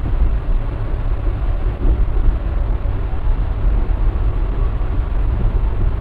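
Passenger train running along the line, heard from on board: a steady low rumble of wheels on rail with rushing noise.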